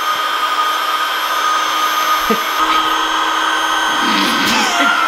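Electric air pump whirring steadily as it inflates a large vinyl snow tube, with a steady high whine; a lower hum joins in for a while partway through.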